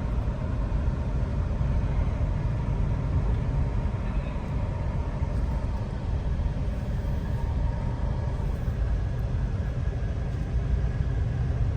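Steady low rumble of engine and road noise inside a car's cabin while it drives.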